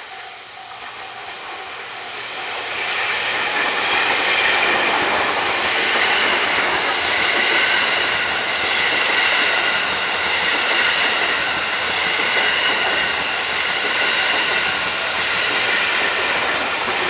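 JR East 215 series double-decker electric train passing close by. Its noise builds over the first few seconds as it nears, then stays loud: wheels running on the rails, with steady high ringing tones over the rumble.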